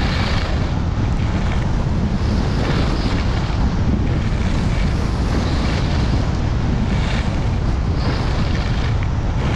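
Wind buffeting an action camera's microphone on a skier running down the slope, a steady low rumble. Over it, the hiss of skis sliding on groomed snow swells and fades every second or two.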